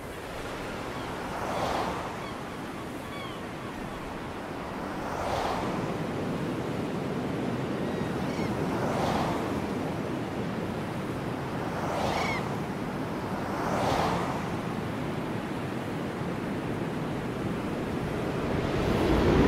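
Sea waves breaking on a beach: a steady wash of surf that swells with each breaking wave, about every two to four seconds.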